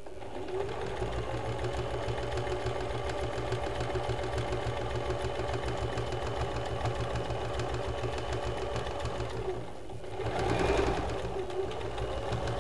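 Usha Janome Fashion Maker electronic sewing machine running steadily, stitching a close, short-length zigzag to sew on an appliqué patch. The stitching dips briefly a little before ten seconds in, then runs on.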